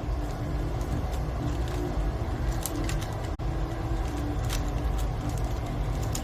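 Light plastic clicks of a Rubik's Cube being turned, scattered irregularly over a steady low background rumble.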